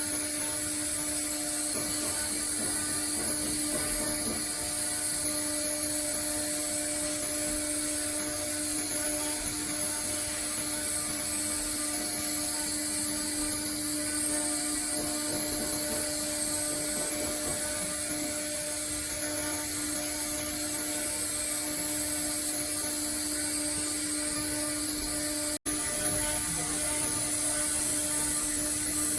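ATC CNC router running, with a steady spindle whine and the hiss of machining and machine motion. The sound drops out for an instant about 25 seconds in.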